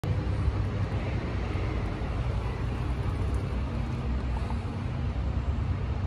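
Steady low rumble of city traffic, with a low steady hum coming in about halfway.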